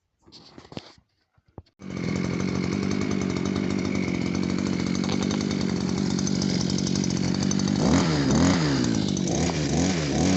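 Small two-stroke petrol grass trimmer engine, rebuilt with a new cylinder-piston kit, starts up about two seconds in after a few light clicks and runs steadily, then from about eight seconds in is revved up and down several times.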